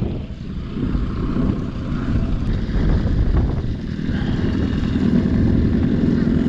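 Yamaha 25 hp tiller outboard motor running with the boat under way. The engine note dips about half a second in, then picks up and holds steady through the second half.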